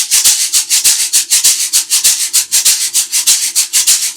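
Two shakers shaken together in a steady fast rhythm, about eight strokes a second: a Latin Percussion shaker and a homemade shaker made from an empty spice tin filled with a common household item.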